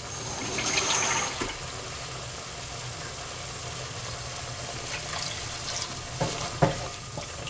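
Water poured from a glass jug into a pot of thick pea curry, splashing for about the first second, to thin the gravy. Two light knocks follow a few seconds later.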